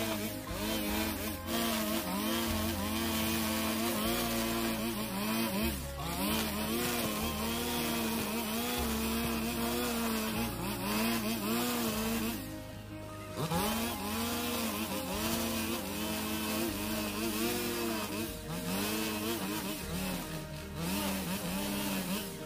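A 45 cc two-stroke brush cutter running with nylon line cutting grass. Its engine pitch rises and falls with each sweep, and it eases off briefly about halfway through.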